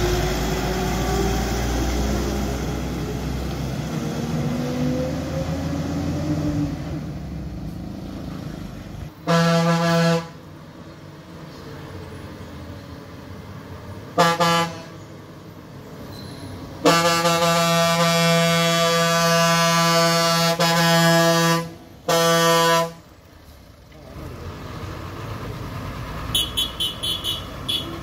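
A loaded goods truck's diesel engine running hard as it swings round a hairpin bend close by, its pitch shifting, then fading away. Then a truck horn sounds four times on one steady pitch: a toot of about a second, a short toot, a long blast of about five seconds and one more short toot, warning of a truck coming down to the blind bend. Near the end comes a quick run of short, high beeps.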